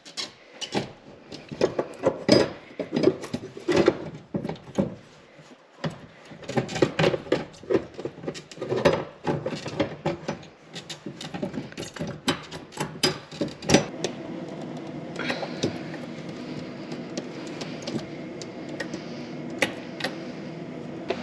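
Light clicks, knocks and rubbing of metal and plastic parts being handled as the fuel pump and sender module is seated in the fuel tank and its O-ring and locking ring are set in place. A steady hum comes in about two-thirds of the way through.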